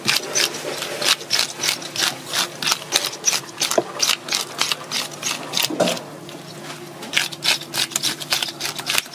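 Fish scaler scraping the large scales off a parrotfish in quick, rhythmic strokes, about three or four a second, with a brief lull about two-thirds of the way through.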